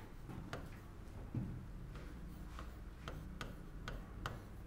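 Stylus tapping and clicking on an interactive smartboard screen during handwriting: faint, irregular clicks a few times a second.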